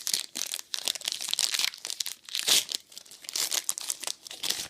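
Plastic-foil trading card pack wrapper being crinkled and torn open by hand, irregular crackling rustles that stop near the end.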